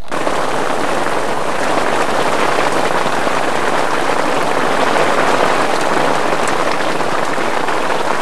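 Heavy rain falling on open water, a loud, steady hiss.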